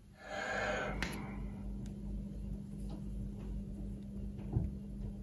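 A brief rustle of handling, then a few faint sharp ticks as a soldering iron tip works at a small part on a radio's circuit board, over a steady low hum.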